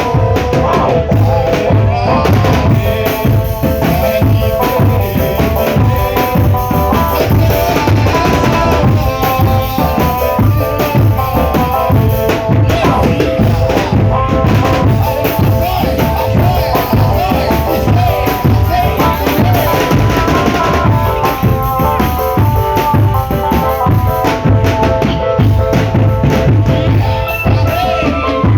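Drum band playing: bass drums and snare drums beat a steady, driving rhythm with rolls, under a melody of held notes.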